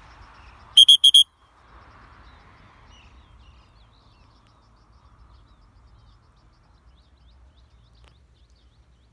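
A high-pitched whistle blown in three short, loud blasts about a second in, and once more near the end, a steady single note each time.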